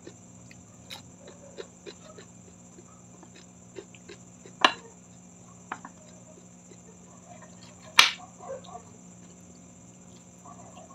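Close-miked chewing of a crisp cucumber slice, a steady run of small crunching clicks. Two much louder sharp clicks come about halfway through and about two-thirds through.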